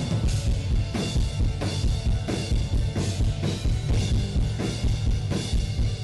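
Live country band playing, with a drum kit keeping a steady beat of hits about every two-thirds of a second.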